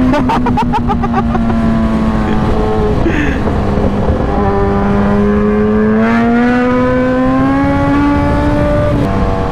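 Motorcycle engine running at road speed under heavy wind rush. Its note sinks a little over the first few seconds as the throttle eases, holds low, then climbs again toward the end.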